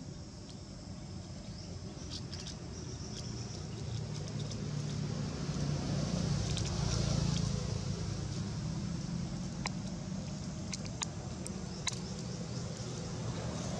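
Low steady rumble that swells to its loudest about halfway through and then eases off, with a few faint sharp clicks in the second half.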